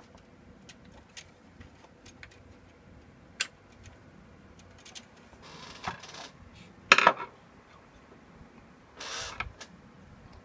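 Hands handling the opened cassette deck's plastic and metal chassis and parts: scattered small clicks and light knocks, a short rub about six seconds in, a louder clatter about seven seconds in, and another brief rub about nine seconds in.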